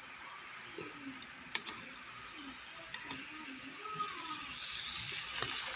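Teriyaki sauce of soy, honey and sugar bubbling and sizzling in a metal pan around pieces of fried chicken, a steady hiss that swells a little near the end. Metal tongs click against the pan a couple of times as the chicken is turned.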